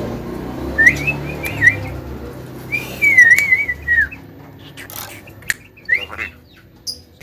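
Javan myna (jalak kebo) whistling: a wavering whistled phrase about a second in, a longer one about three seconds in, and a short rising whistle near the end, with a few sharp clicks between them.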